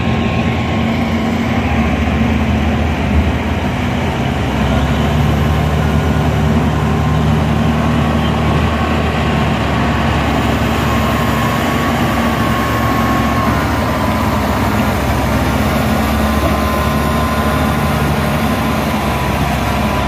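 Diesel engine of a Caterpillar 140G motor grader running steadily as it grades dirt close by, with a thin steady whine above the engine note.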